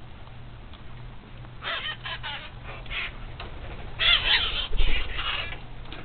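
Parrots squawking: a few harsh calls about two seconds in, then a louder run of squawks from about four to five and a half seconds, with a low bump in the middle of it.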